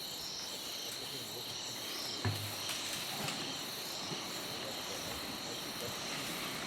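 Insects calling steadily, a constant high-pitched trill, with a single short knock about two seconds in.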